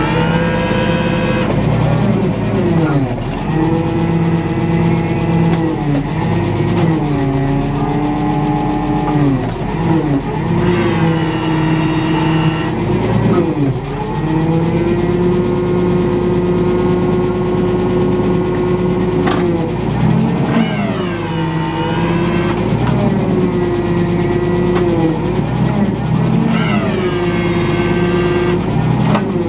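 Nissan forklift's engine running, its pitch sagging and recovering again and again as the hydraulics are worked to open, close and rotate the roll clamp attachment, with a higher whine rising over it several times.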